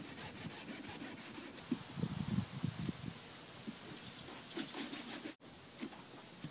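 A large knife sawing through the thick rind and flesh of a pumpkin in a run of short strokes, about two seconds in and again briefly later on.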